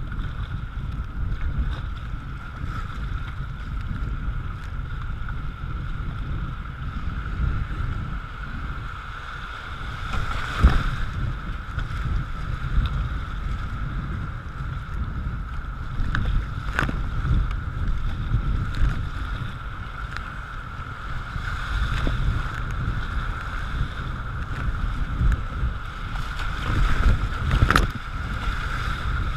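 Kayak moving through river rapids: steady rushing water with wind buffeting the microphone, and a few sharp splashes of the paddle blade, the loudest near the middle and near the end.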